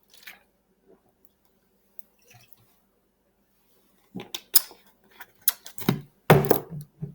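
A person drinking down the last of a can of sparkling water. A few faint mouth clicks come first, then from about four seconds in a quick run of loud gulps and swallows.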